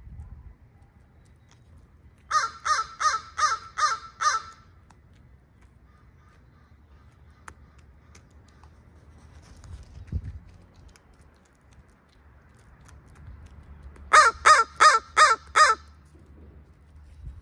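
Crows cawing in two runs of six evenly spaced caws, one run a couple of seconds in and a faster one near the end: territorial calling, the crows yelling about turf.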